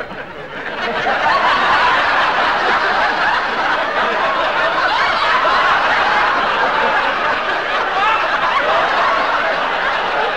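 Studio audience laughing, swelling about a second in into a long, unbroken laugh of many voices.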